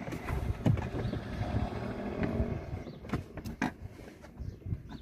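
Handling noise of plastic interior trim and tools being worked: a few sharp knocks and clicks over a low rumbling, the loudest knock just under a second in and a quick pair of clicks around three and a half seconds.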